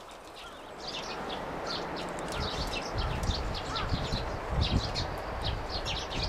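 Small birds chirping and twittering, many quick overlapping calls that start about a second in and keep up densely, with a low rumble through the middle.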